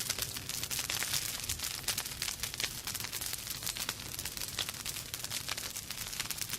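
Campfire crackling: a dense, irregular run of small pops and snaps over a soft hiss.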